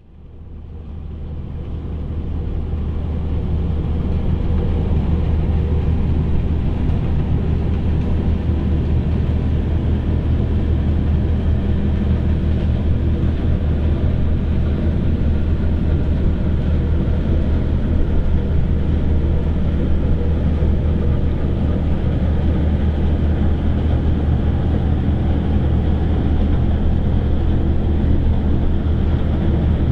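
Steady low drone of the cargo ship Westborg's diesel engine as she passes close by, fading in over the first few seconds.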